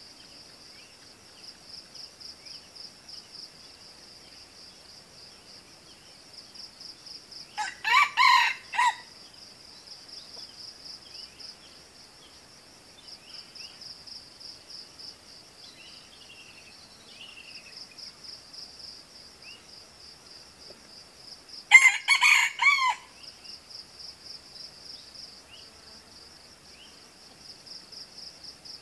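Red junglefowl crowing twice, each a short broken crow of about a second, the two some fourteen seconds apart. Under it runs a steady, high, pulsing trill of insects.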